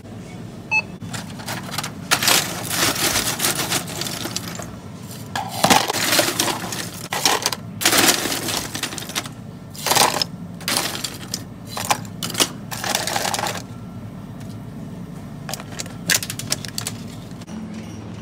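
Plastic slotted scoop scraping and knocking against stainless-steel serving bins and a plastic tub as shrimp are scooped and dropped in: a run of irregular clatters and scrapes, the loudest clacks about 6, 8 and 10 seconds in. A steady low hum lies underneath.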